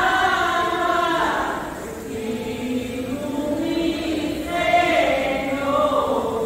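A group of voices singing a hymn together in long held notes, with a brief dip between phrases about two seconds in.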